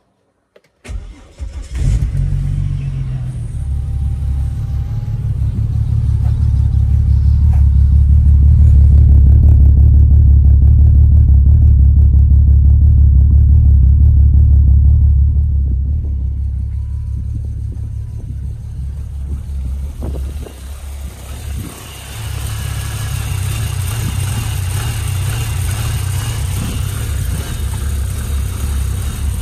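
Cold start of a turbocharged car engine: it catches about two seconds in and runs at a raised, loud idle, which drops lower about sixteen seconds in and wavers briefly before steadying. The owner says the engine was hurt by overboosting on a track day, and that it now makes a little bit of a noise and smokes.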